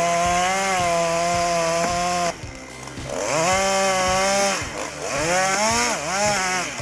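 Chainsaw running at high revs. It cuts out abruptly a little over two seconds in, then revs up again and rises and falls several times.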